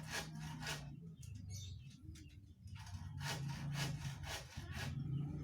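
Hand saw cutting with rhythmic back-and-forth strokes, about three a second, pausing for a couple of seconds about a second in, then resuming.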